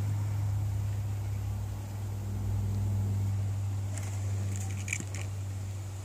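Steady low rumble or hum, with a few brief high chirps or clicks about four to five seconds in.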